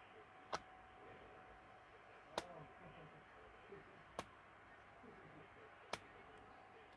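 Four sharp, short clicks, evenly spaced about two seconds apart, over faint room noise.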